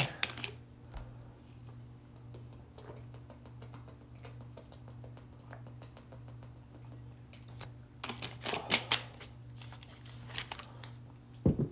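Typing on a keyboard: scattered light clicks throughout, with a denser, louder run of clatter about eight to nine seconds in and another brief one near the end, over a steady low hum.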